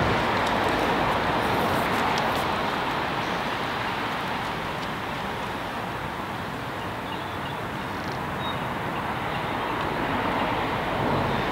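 Steady rushing background noise, a little louder at the start and again near the end, with a few faint clicks about two seconds in.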